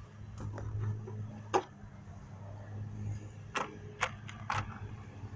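Sharp clicks and knocks of hard plastic parts as the plastic upper intake manifold of a Ford 4.0 SOHC V6 is worked free and lifted off the engine, over a steady low hum.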